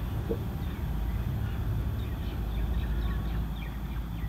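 A steady low rumble, with faint bird chirps scattered through it.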